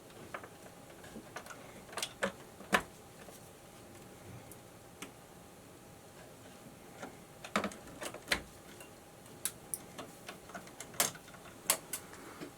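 Irregular sharp clicks and snaps of a wire stripper taking the insulation off the ends of electrical wires, in small clusters with pauses for handling the wires.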